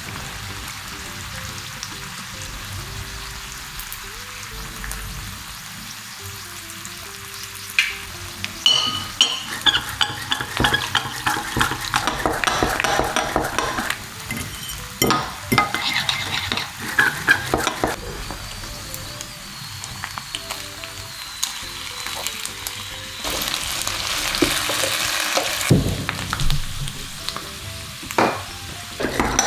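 Potato slices sizzling in hot oil in a frying pan, the sizzle swelling louder about three-quarters of the way through. In the middle, a hand whisk rattles fast against a ceramic bowl, beating egg whites.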